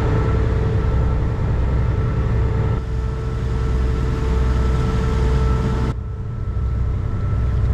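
Ferry's engine droning steadily: a low drone with a constant hum above it. The sound shifts abruptly twice, about three and six seconds in.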